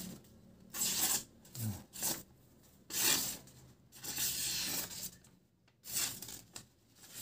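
A factory-edged, unsharpened 20 cm slaughter knife slicing through sheets of notebook paper in several separate strokes. The paper rasps and tears rather than parting cleanly, a sign that the edge cuts but is not yet smooth or keen.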